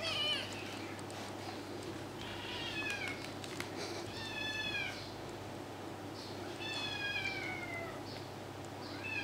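Kitten meowing over and over: short, high-pitched calls that fall in pitch, about one every two seconds.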